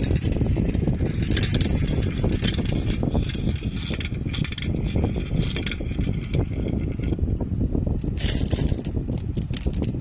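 Marbles rolling down a marble-run track: a steady rolling rumble, broken by spells of bright clicking and clattering as the marbles knock together and drop through the course.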